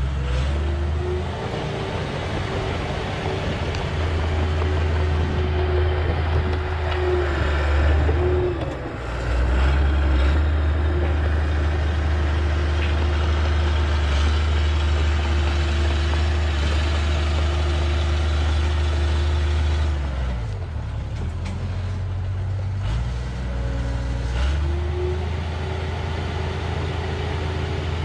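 Diesel engine of a heavy earthmoving machine working under load: a deep steady drone with a held whine above it. It eases off briefly about nine seconds in and again for a few seconds past the twenty-second mark, then pulls back up.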